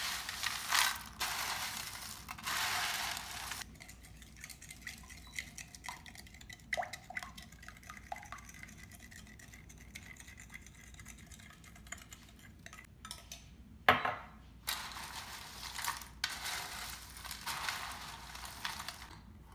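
Hands tossing a dry snack mix of pretzel sticks, Cheerios, Chex cereal and cashews in a metal baking pan: a dry rustling clatter for the first few seconds, then a quieter stretch of scattered small clicks, a sharp knock about 14 seconds in, and more rustling tossing near the end.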